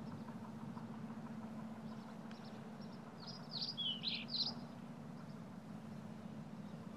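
Quiet background with a steady low hum, and a few quick small-bird chirps about three seconds in, lasting a second or so.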